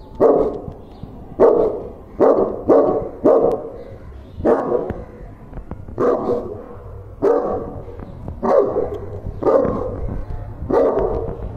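A large Saint Bernard barks repeatedly, one deep bark about every second, each one short and separate.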